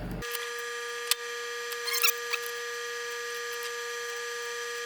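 A steady high-pitched electrical whine that starts abruptly just after the beginning, with a few light clicks and a short squeak about two seconds in, as a diode is desoldered from a power supply board.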